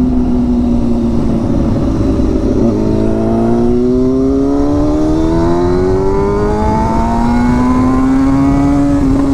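Straight-piped Kawasaki ZX-6R inline-four running loud under acceleration. Its pitch drops at an upshift about three seconds in, climbs, then drops at another shift near seven seconds and climbs again.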